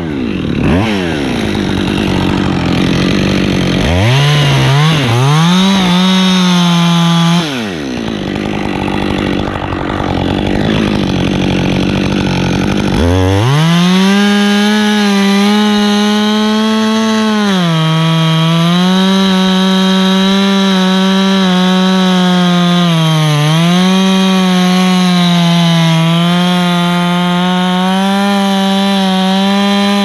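Two-stroke chainsaw revving up and down in short bursts. From about thirteen seconds in it is held at full throttle, cutting into a pine trunk, its pitch sagging briefly twice as the chain bites.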